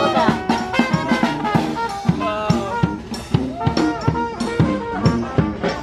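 Brass band playing upbeat jazz on the march: trumpets and sousaphone carry the melody and bass over a steady drum beat.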